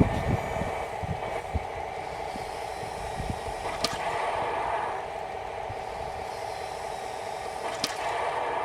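Heng Long 1:16 RC Panther tank's electronic sound unit playing a simulated tank engine through its small speaker: a steady, finely pulsing engine drone that swells briefly a few seconds in and again near the end. Two sharp clicks cut through, about four seconds apart.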